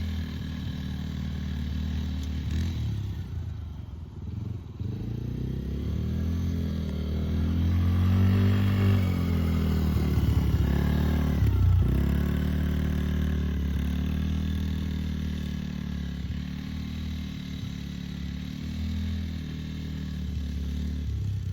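Yamaha Raptor 90 ATV's small single-cylinder four-stroke engine running under way. It revs higher and louder around the middle, drops sharply near the twelve-second mark, then runs steadily again.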